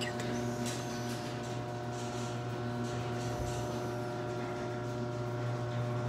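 Garage door opener motor running steadily with an even hum as it raises the sectional door.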